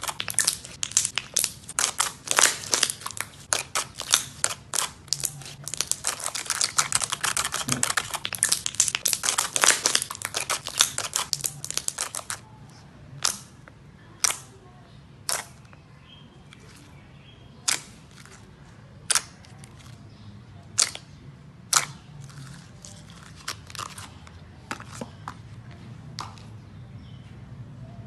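Slime being handled, crackling and popping with dense rapid clicks for about the first twelve seconds, then single sharp pops every second or two.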